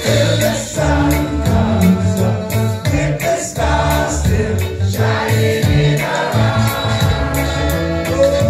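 Live ska-reggae band playing loud amplified music with a steady beat, a strong bass line and singing.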